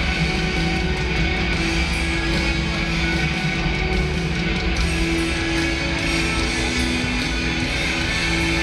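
Rock music with guitar, played loud over an arena's sound system for a pregame intro.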